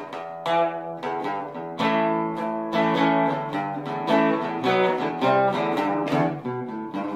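Instrumental background music: plucked guitar notes and chords, each one ringing on as the next is picked.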